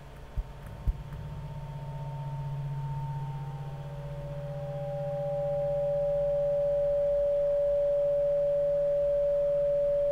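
Electronic pure tones held over a low hum: a few higher tones fade and one steady tone swells from about halfway in and holds. Two soft knocks in the first second.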